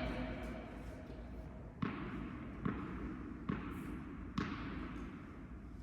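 Tennis ball impacts, four sharp hits about a second apart, each ringing out with hall reverberation on an indoor court.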